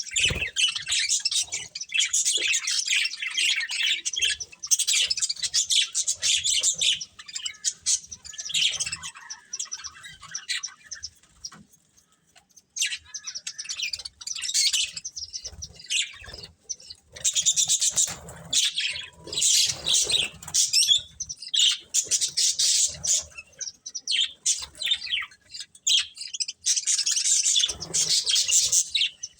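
Budgerigars chirping and warbling in fast, chattering runs of a few seconds each, with a brief lull about twelve seconds in.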